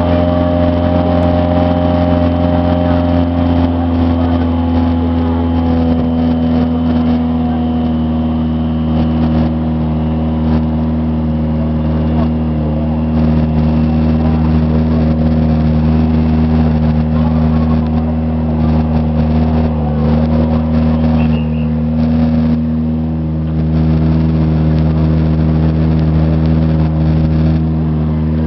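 Citroën DS3 WRC rally car's 1.6-litre turbocharged four-cylinder engine idling steadily at a constant pitch.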